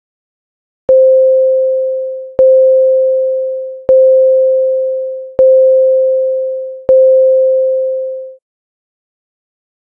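Synthesized school class bell: a pure tone on C5 struck five times, each note starting sharply and fading away, about one and a half seconds apart.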